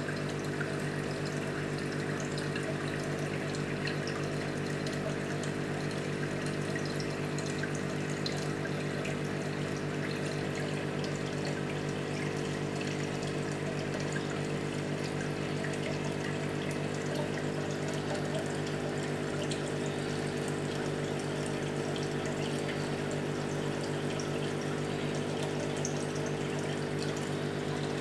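Aquarium pump humming steadily, with water running in the tank.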